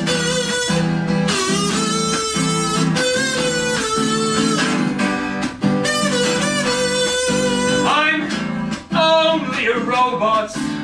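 Strummed acoustic guitar under a harmonica solo playing long held notes, with a single sung word at the very end.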